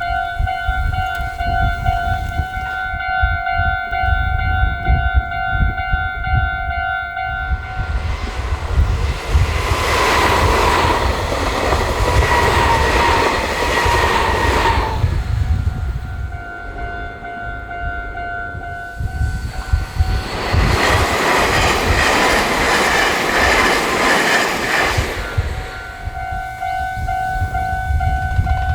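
Japanese level-crossing alarm bell ringing its steady two-tone 'kan-kan', drowned out twice by trains rushing past for about five to seven seconds each. The first train's pass carries a slowly falling whine.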